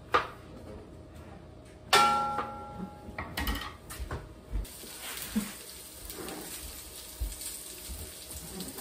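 Kitchen clatter: a metal pan or utensil clanging with a short ring about two seconds in, then a few knocks, followed by the faint steady sizzle of a hot skillet.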